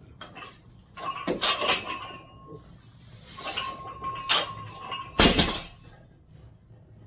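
Loaded barbell with bumper plates during squat cleans: metal clanks with a ringing clink from the bar, plates and collars about a second in and again around three and a half seconds. A little after five seconds the bar is set down on the rubber floor with a heavy thud, the loudest sound.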